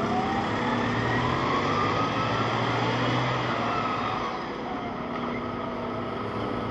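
Steady engine and machinery noise with low hum tones, and a whine that glides upward in pitch over the first few seconds.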